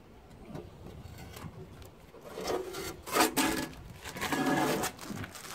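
A loose sheet-metal panel scraping against an old metal toolbox as it is fitted into place: three scrapes in the second half, with a sharp knock about three seconds in.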